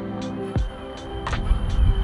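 Background music with a steady beat and sustained notes, thinning out in the second half as a low rumbling noise comes up near the end.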